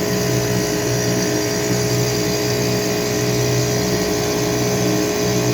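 Rooftop HVAC equipment running: a steady machine hum with even fan noise over it.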